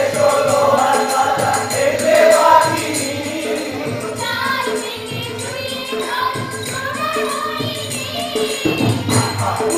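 A group of voices sings a song together to hand-drum beats. The drumming thins out in the middle, leaving mostly the voices, and comes back strongly near the end.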